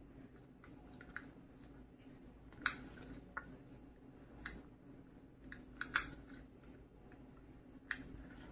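Scattered light clicks and taps of diced yellow bell pepper being sprinkled by hand onto pizza toppings on a baking tray, the loudest about six seconds in, over a low steady hum.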